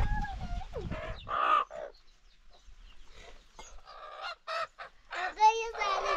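Domestic chickens clucking in a series of short calls, with a louder, wavering call a little after five seconds in.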